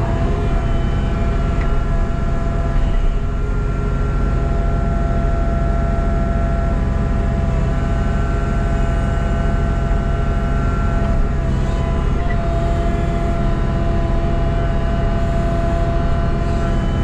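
Excavator's diesel engine running steadily under load, with a steady whine from the hydraulics whose pitch shifts slightly every few seconds as the machine works.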